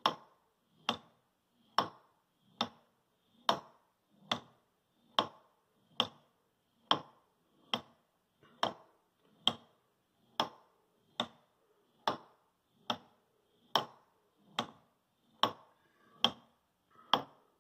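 Wooden six-arm escapement of Baltic birch plywood ticking steadily, each arm of the escape wheel striking the pallets. The ticks are even and regular, a little faster than one a second.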